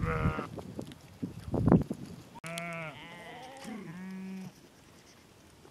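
Bleating from the herd's sheep and goats: a short bleat at the start, then a run of several wavering bleats about halfway through. A brief loud thump comes in between.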